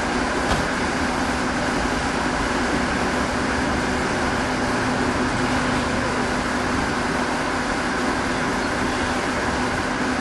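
Car engine running steadily, a constant low drone under an even hiss, heard from inside the car.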